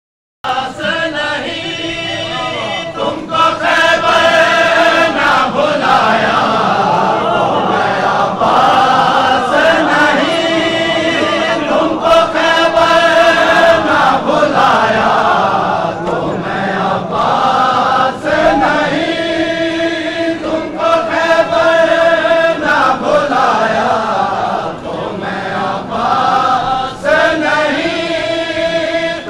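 A noha, a Shia mourning lament, chanted by men's voices with a crowd singing together, over repeated sharp slaps of matam, hands beating on chests. The chanting starts abruptly about half a second in.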